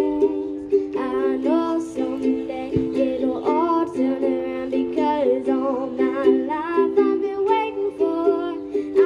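A child singing while strumming a ukulele: steady chords under a sung melody that slides between notes.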